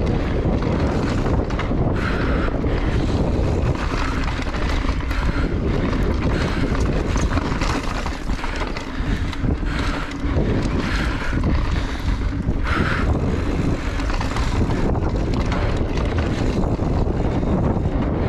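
Wind rushing over the onboard camera microphone of a mountain bike riding fast down a dirt trail. It is a loud, steady, distorted rush of noise, heaviest in the low end, with the ride's rumble mixed in.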